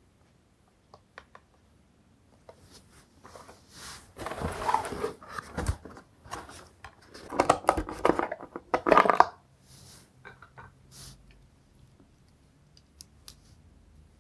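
Cardboard packaging being handled: rustling and scraping in two spells, with scattered light clicks and knocks, as the mini quadcopter is taken out of its cardboard box insert.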